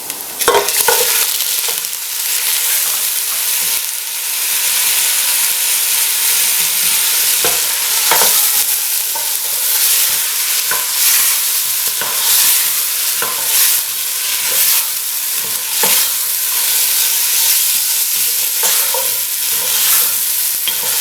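Chicken pieces on the bone sizzling in hot oil with browned onions in a pot, with a spoon scraping and knocking against the pot as they are stirred. The chicken is being lightly browned before water is added.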